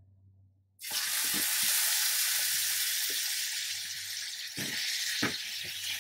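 Pieces of steak laid into a hot oiled frying pan, sizzling loudly from about a second in, with a few light knocks in the sizzle.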